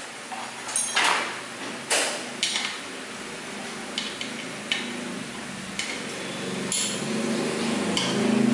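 Sharp metallic clicks and taps, about nine spread irregularly, as hardware is handled and fitted against a Vinawind ceiling fan's motor housing while a blade is attached. A low droning hum builds from about two-thirds of the way in and is loudest at the end.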